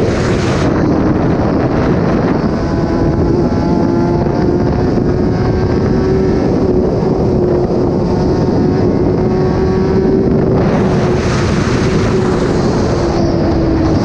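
Kawasaki ZX-10R's inline four-cylinder engine, with an SC-Project exhaust, running at steady revs while riding, with wind rushing over the microphone. The pitch holds nearly constant, easing off slightly near the end.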